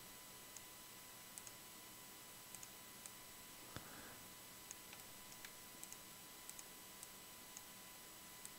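Faint, irregular computer mouse clicks over near-silent room hiss, several in quick pairs, with one slightly louder knock just before four seconds in.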